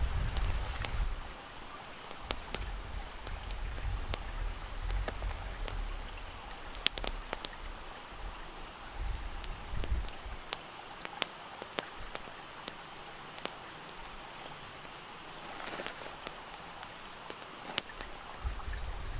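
Steady outdoor hiss like light rain or running water, with scattered small clicks and ticks. Low wind rumble on the microphone in the first second and again around nine to ten seconds in.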